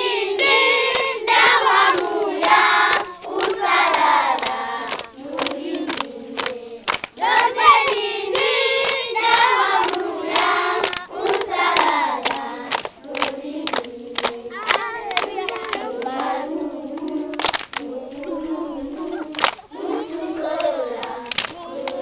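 A group of children singing together, clapping their hands along with the song.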